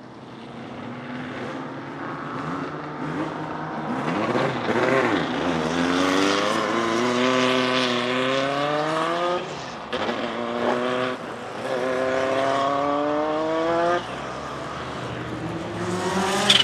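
Turbocharged 1.4-litre four-cylinder engine of a Renault 5 Maxi Turbo SuperProduction race car accelerating hard. It gets louder over the first few seconds, then the pitch climbs and drops back three times as it shifts up through the gears. A sudden sharp noise comes right at the end.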